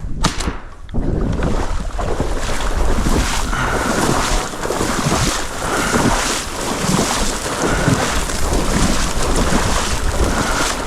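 Steady, loud rushing noise, wind on the microphone, mixed with irregular sloshing and rustling from someone wading through marsh water and thick vegetation.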